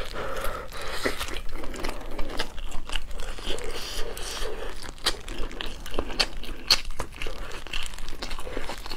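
Close-up eating sounds: chewing stewed pork with irregular sharp wet clicks and smacks, mixed with the crinkle of disposable plastic gloves as the meat is torn apart by hand.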